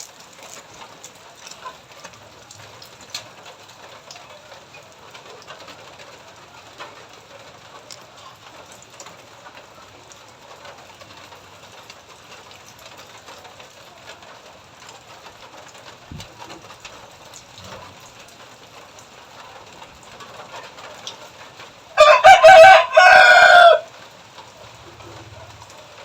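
A rooster crows once, loudly, for about two seconds near the end, over a faint background with scattered small ticks.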